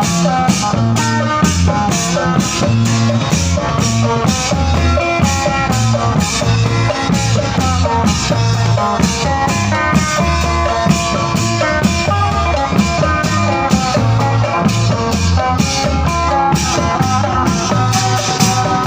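Loud band music with a drum kit keeping a steady beat of about two strokes a second under guitar and other sustained pitched notes.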